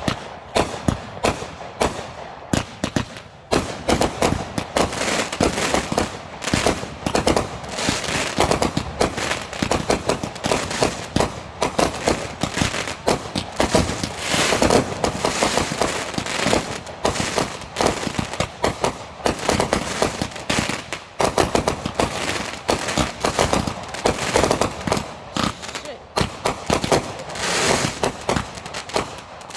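Backyard consumer fireworks going off in a rapid, unbroken barrage of bangs and crackling, many reports a second.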